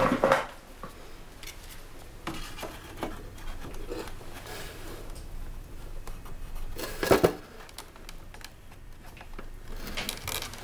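Hands handling the pieces of an architectural scale model: small taps, scrapes and clicks of card and foam, with a sharper knock about seven seconds in.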